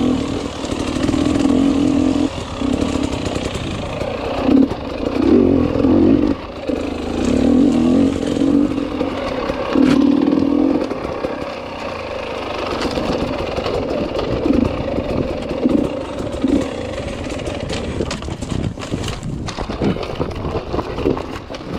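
Enduro motorcycle engine revving up and down over and over as the throttle is worked on an off-road course. There are clattering knocks, most of them near the end.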